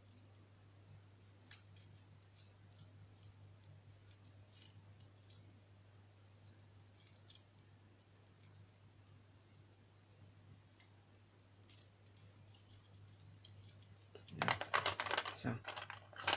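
Metal wire puzzle pieces clicking and clinking together as the steel wire handle is worked through its rings by hand: sparse light clicks, then a denser, louder clatter of metal near the end.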